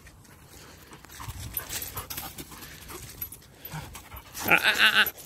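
Dog panting hard close by, the rapid breaths loudest for about half a second, four and a half seconds in.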